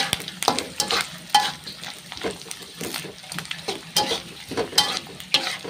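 Dried anchovies sizzling as they fry in hot oil in a wok, with a spatula scraping and clacking against the pan at irregular moments as it stirs them. The fish are being fried until dry.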